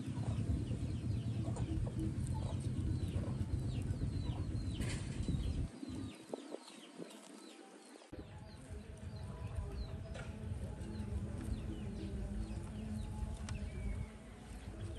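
Chickens clucking and birds chirping in quick short calls, over a low rumble that drops out about six seconds in and comes back two seconds later.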